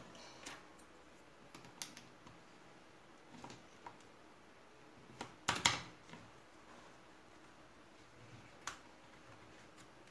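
Scattered sharp clicks as wooden XDA-profile keycaps are pressed down onto the blue-stemmed switches of a Ducky One 2 Mini mechanical keyboard, with the loudest pair of clicks about five and a half seconds in.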